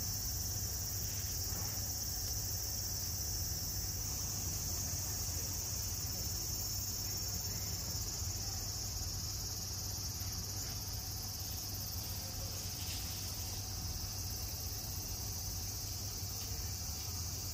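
Steady high-pitched insect chorus from the surrounding trees: a continuous shrill drone with no breaks, over a low steady rumble of outdoor ambience.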